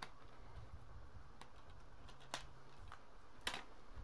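About four faint, sharp plastic clicks spread over a few seconds as a plastic DVD case is handled, over a faint low hum that stops about three seconds in.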